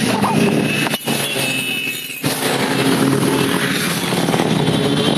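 Several motorcycles riding past one after another, their engines running loud and steady, with one engine note giving way to another a little after two seconds in.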